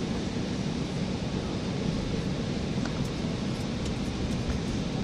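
Steady cabin noise inside an Embraer 195 taxiing slowly: its GE CF34-10E turbofans running at idle under a steady rush of air, with a low hum.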